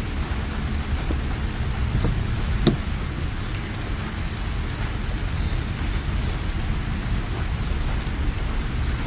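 Heavy rain falling on a moving car, over a steady low rumble, with scattered drops ticking; one sharper tap nearly three seconds in.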